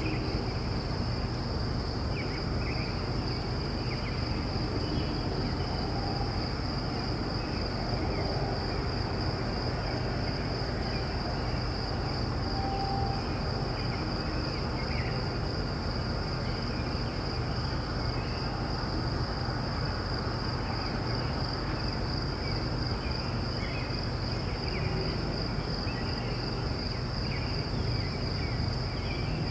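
Distant crickets trilling in a steady, unbroken chorus, with faint bird chirps scattered throughout and a steady low rumble underneath.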